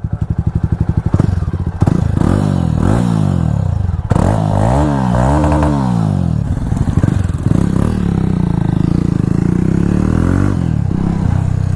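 Jawa Perak single-cylinder motorcycle with a loud aftermarket exhaust. It idles with an even, pulsing beat, is revved up and down several times, then settles to a steadier run.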